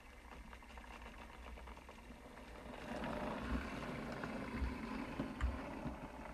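OO-gauge model goods train, a Bachmann GWR pannier tank with its wagons, rolling along the track with a rattle of small clicks from the wheels. It gets louder about three seconds in as the wagons pass close by, with a few dull thumps.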